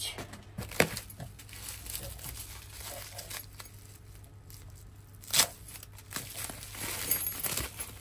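Bubble wrap and plastic packaging crinkling and rustling as hands lift a wrapped padlock out of a cardboard box, with a couple of sharper clicks, about a second in and again past five seconds.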